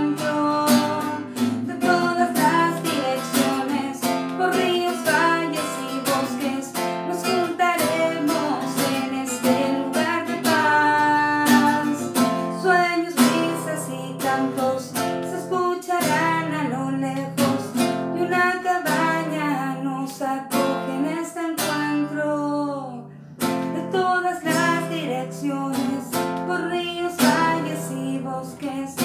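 A woman singing a song while strumming an acoustic guitar in a steady rhythm. The playing drops off briefly about two-thirds of the way through, then picks up again.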